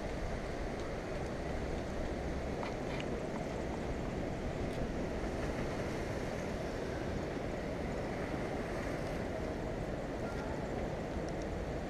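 Steady outdoor seaside ambience: wind buffeting the microphone with the wash of the sea against the rocks, an even rushing noise with no distinct events.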